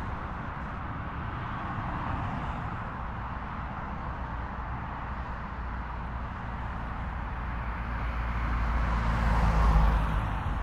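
A car engine running steadily, growing louder toward about nine to ten seconds in and then easing off.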